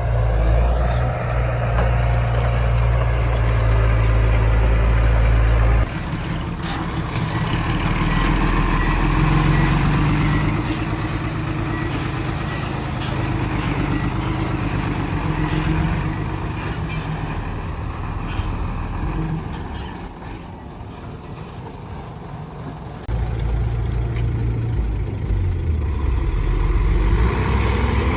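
Heavy diesel earthmoving machinery running steadily. The sound changes abruptly about six seconds in and again a few seconds before the end.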